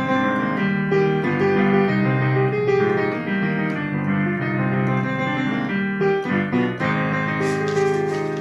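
Digital piano played solo: a passage of chords and melody notes with no singing.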